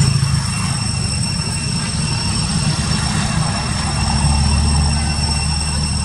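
Low, steady engine rumble of a running motor, dropping in pitch about four seconds in, with a thin steady high-pitched whine above it.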